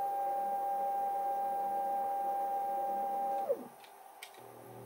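Stepper-driven axis of a DIY CNC lathe making a rapid move, a steady whine that drops quickly in pitch and stops about three and a half seconds in as the axis slows to a halt. A few light clicks follow, then a quieter, lower hum starts near the end.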